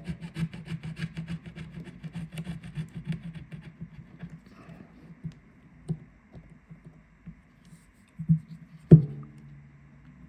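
Small spatula scraping leftover back-glass adhesive off the frame of a Samsung S20 Ultra, in quick repeated strokes for the first few seconds. A few light taps follow, then a sharp knock near the end, the loudest sound.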